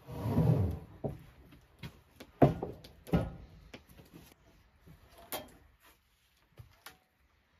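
A series of irregular knocks and thumps, opening with a short rumbling clatter, then single sharp knocks at uneven gaps that thin out toward the end.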